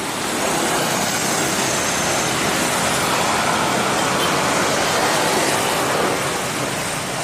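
Steady rushing noise of road traffic, swelling a little in the middle as vehicles go by.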